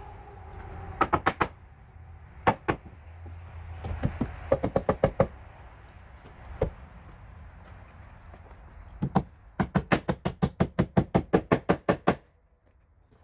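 Hammer blows on wood while a new window frame is nailed together: a few short groups of strikes, then a long, fast run of about twenty even blows near the end that stops suddenly.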